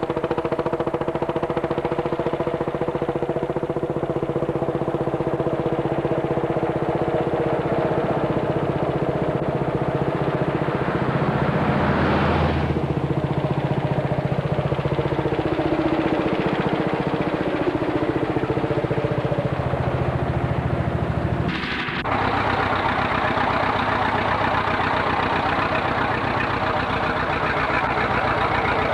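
Vintage tractor engines running steadily. The sound changes abruptly twice, about 12 seconds and 22 seconds in.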